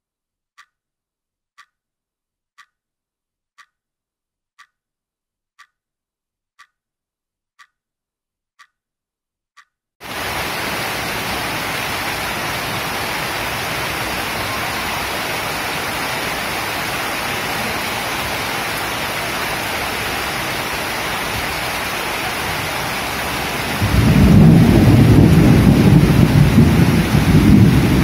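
Faint ticking about once a second for the first ten seconds, then steady monsoon rain starts suddenly. Near the end a loud, low rumble of thunder comes in over the rain.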